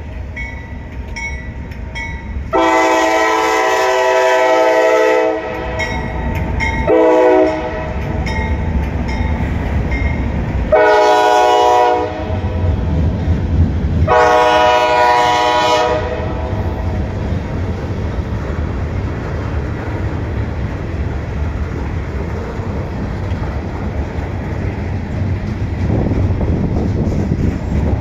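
Norfolk Southern freight train's diesel locomotive sounding its air horn in four blasts, the second one short, followed by the steady rumble of the locomotives and freight cars rolling past.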